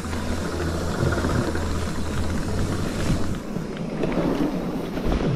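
Cube electric mountain bike rolling fast down a bumpy dirt trail: tyre rumble over roots and ruts with constant small rattles and knocks from the frame and chain, and wind on the microphone.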